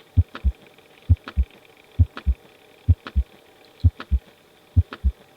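Normal heart sounds heard through a stethoscope: six lub-dub beats, each the first heart sound (mitral and tricuspid valves closing) followed closely by the second (aortic and pulmonary valves closing). The beats come at a steady rate a little faster than one a second, with clear gaps between them.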